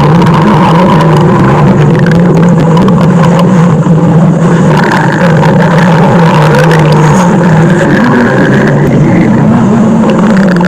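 Loud, continuous stomach growling: a low, wavering rumble that goes on without a break.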